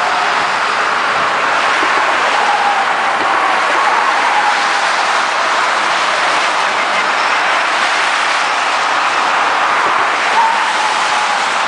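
Steady traffic noise of a highway convoy of tow trucks, pickups and cars passing at speed: the rush of tyres on pavement mixed with engines. Faint wavering whines come and go over it.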